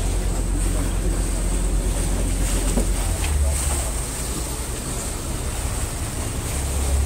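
Water bus (vaporetto) under way: a steady low engine rumble with water rushing past the hull, and wind buffeting the microphone in gusts.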